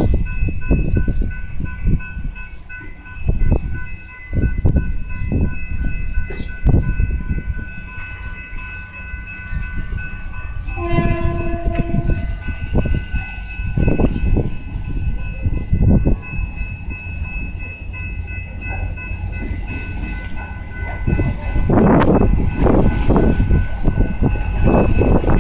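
Two GT22 diesel-electric locomotives running light approach the station. The horn sounds once, for about a second, about halfway through, and the engine rumble grows louder near the end. Wind buffets the microphone throughout, over a steady high ringing from the level-crossing warning.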